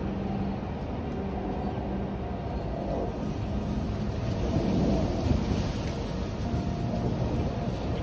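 Wind gusting through a tree and across the microphone: a steady rushing rumble that swells into a stronger gust about halfway through.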